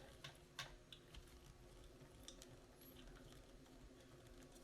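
Near silence: room tone with a low steady hum and a few faint, scattered clicks from small parts being handled.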